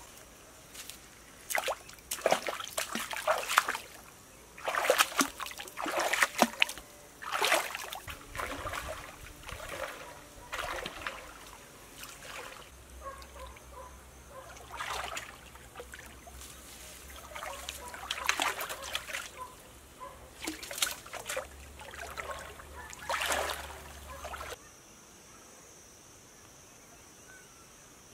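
Bare feet wading through a shallow stream, sloshing and splashing in an irregular run of steps. Near the end the splashing stops suddenly, leaving a steady high insect drone.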